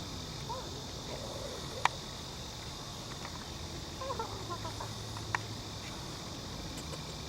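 Steady high chirring of insects, with a few short wavering squeaks and two sharp clicks, the louder one about two seconds in.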